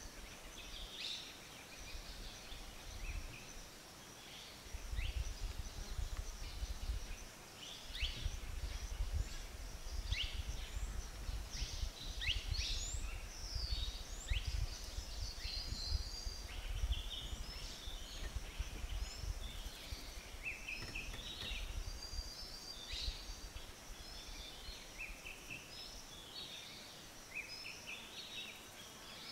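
Several small birds calling, with many short high chirps and quick whistled slurs overlapping throughout. A low rumble sits underneath from about five seconds in until shortly before the end.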